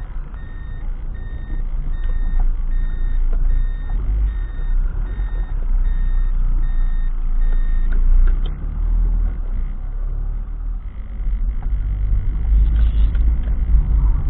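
A car's reversing beeper sounding a steady single-pitched beep about twice a second as the car backs up, stopping about eight seconds in. Low engine and road rumble heard inside the cabin throughout, heavier near the end.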